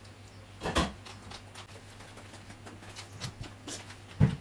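Mealtime table sounds: a short scrape about a second in, a few light clicks, and a dull knock of a dish or bowl on the table near the end, over a faint steady hum.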